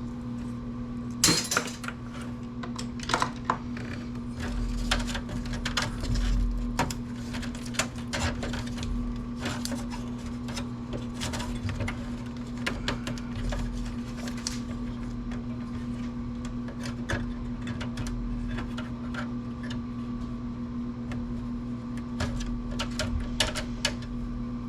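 Scattered clicks, taps and clinks of metal computer parts and hand tools being handled during a teardown, over a steady low hum.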